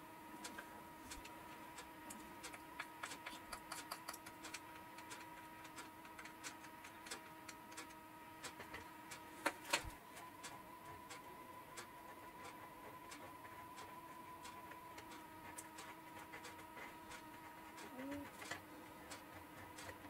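Faint, irregular small clicks and taps as a thin stick or tool and a small plastic pot are handled, working epoxy into a channel cut in a foam model-aircraft wing, with a sharper knock a little before halfway. A steady faint hum runs underneath.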